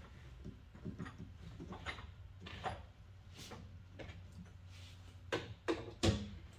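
Scattered knocks and clunks of tools and parts being handled while a sidecar is fitted to a motorcycle, over a steady low hum. The loudest knocks come near the end, three in quick succession.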